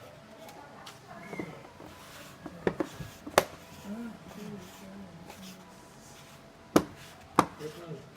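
Several sharp, irregularly spaced clicks, with faint low voices in the middle.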